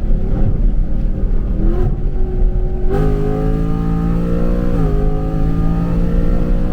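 Ford Mustang GT's 5.0 L Coyote V8, breathing through long-tube headers and an X-pipe, pulling hard under full throttle in a rolling acceleration from highway speed. About three seconds in the exhaust note comes up strong and climbs in pitch, drops suddenly near five seconds as it shifts up, then pulls again.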